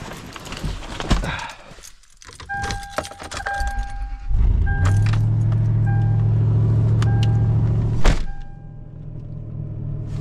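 Keys jangle as the key goes into a 2006 Toyota 4Runner's ignition, and a dashboard chime beeps over and over. About four seconds in, the truck's 4.7-litre 2UZ-FE V8 starts in the cold and runs at a steady idle, with a sharp knock near eight seconds in, after which the hum is quieter.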